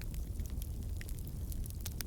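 Campfire crackling: a steady low rumble of the burning fire with frequent sharp pops and snaps scattered irregularly through it.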